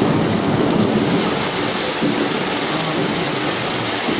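Hailstorm: hail and heavy rain pelting the building's concrete and tiled surfaces in a dense, steady patter. A deeper rumbling layer runs underneath and is loudest at the start.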